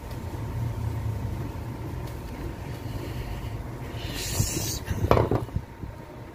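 Screwdriver working the screws out of a microwave oven's sheet-metal back cover: a short scraping noise about four seconds in and a brief knock just after, over a steady low hum.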